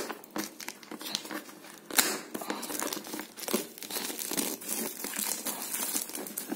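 Clear plastic wrapping crinkling and crackling as it is peeled off a cardboard product box, in irregular bursts, with a louder crackle about two seconds in.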